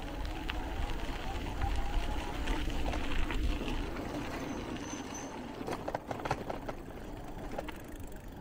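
Ride noise from an electric bicycle with a rear hub motor rolling over paving: a steady low rumble, strongest in the first few seconds, with scattered rattling clicks that bunch together about six seconds in.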